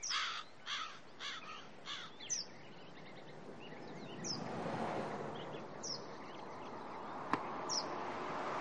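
A crow cawing repeatedly in quick succession, then short high bird chirps over outdoor ambience that grows louder. A single sharp crack of a cricket bat hitting the ball comes about seven seconds in.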